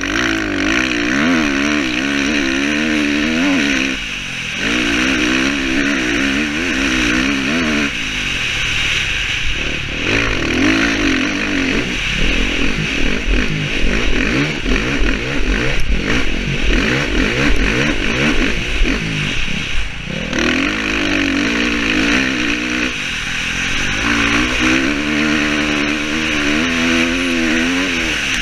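Dirt bike engine under hard riding, its note rising and falling over and over as the throttle is opened and rolled off through the gears. The sound drops away briefly a few seconds in and again around eight and twenty seconds in, with a steady hiss underneath throughout.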